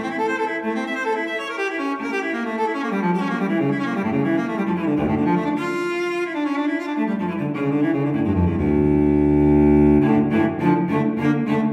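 Background music: a solo cello playing a slow, expressive melody, with a long held low note about three-quarters of the way through.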